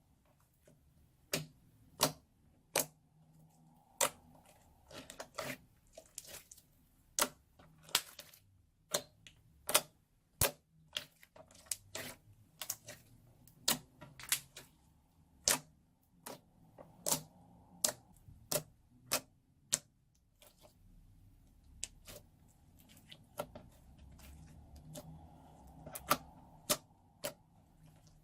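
Slime being squeezed and pressed, giving off sharp, irregular clicks and pops as air pockets burst, about one to two a second.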